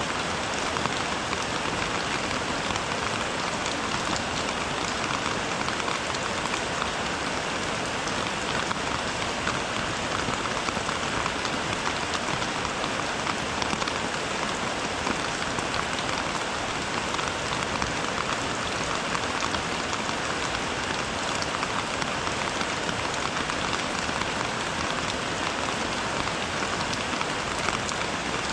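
Steady rain falling, a dense, even patter of drops that neither builds nor eases.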